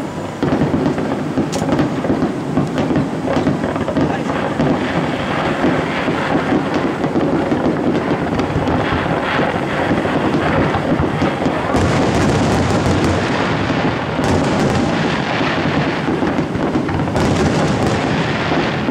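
Fireworks display at full tilt: many shell bursts booming and crackling over one another in a continuous, unbroken din.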